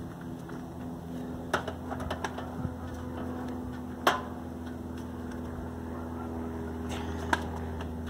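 A dishwasher on a hand truck being wheeled and tipped, giving a few sharp knocks and rattles, the loudest about four seconds in, over a steady low hum.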